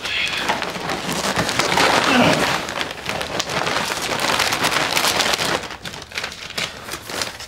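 Brown paper wrapping of a large parcel being torn open and crumpled by hand: a dense rustling and crackling that eases off about two-thirds of the way through.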